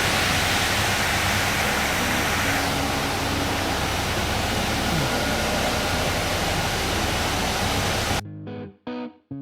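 Loud steady rushing noise with a faint low hum underneath, cut off suddenly about eight seconds in by electric guitar music.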